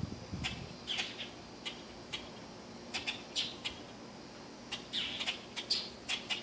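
A baby bird cheeping: short, high chirps, a dozen or so at irregular intervals, some coming in quick clusters.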